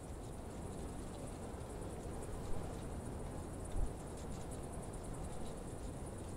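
Insects chirping in a steady, fast, high-pitched pulsing trill over a low rumble, with two soft low bumps near the middle.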